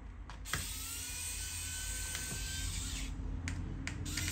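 Small electric screwdriver running in two spells as it backs out the laptop battery's Phillips screws: a faint motor whine that rises and then holds steady for about two and a half seconds, stops briefly, and starts again near the end.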